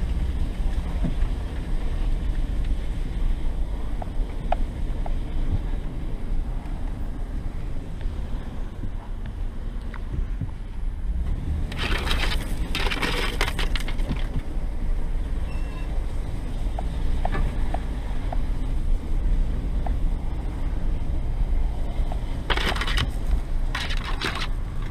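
Vehicle driving along a snowy woods trail, heard from inside the cabin: a steady low engine and tyre rumble. It is broken twice, about twelve seconds in and again near the end, by a loud harsh rush, like snow or slush hitting underneath or brush scraping along the body.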